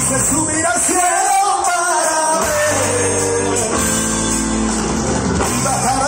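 Live rock band playing through a PA system, a sung vocal line held over electric guitars, keyboard and drums.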